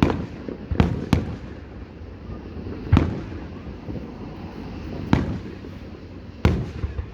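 Fireworks going off: six sharp bangs spaced irregularly, a second or two apart, over a continuous low rumble.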